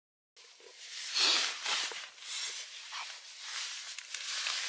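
Fabric rustling in uneven bursts inside a small tent as someone shifts about in a jacket and blanket, starting a moment in, the loudest burst about a second in.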